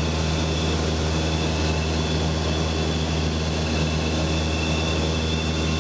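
Cessna 172's piston engine and propeller droning steadily in cruise, heard inside the cockpit cabin, with a faint high steady whine over it.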